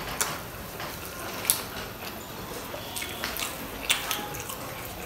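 Close-up wet eating sounds of people chewing steamed momos dipped in chutney: soft squishing and chewing broken by sharp mouth clicks and smacks, the loudest about a second and a half in and again near the end.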